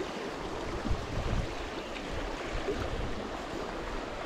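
Shallow river running over stones, a steady rush of water, with uneven low rumbles of wind on the microphone.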